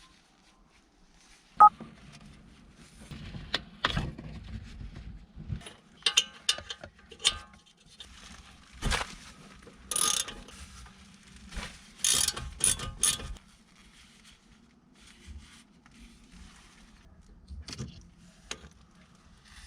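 Mechanical work on car parts: a sharp click, then irregular metal clanks and short ratcheting rattles from tools being used.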